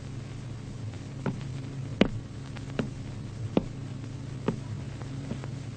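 Steady low electrical hum on an old film soundtrack, with a series of short sharp ticks about once a second.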